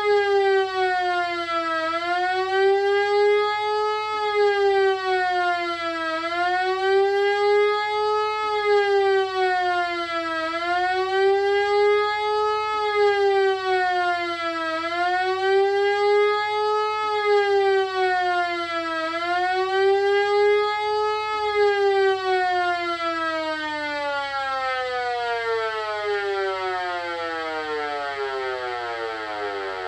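Homemade siren sounding the Swiss general alarm: a wailing tone that rises and falls about every four seconds. About two-thirds of the way through the wailing stops and the pitch slides steadily down as the siren winds down.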